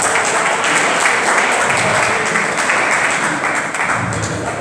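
Audience applauding: many hands clapping steadily, easing slightly near the end.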